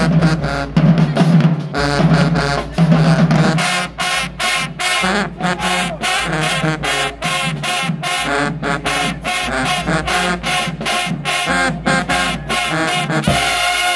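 High school marching band playing a brass-and-drum piece: sousaphones, trumpets and trombones over a steady drum beat. The drumming breaks off near the end.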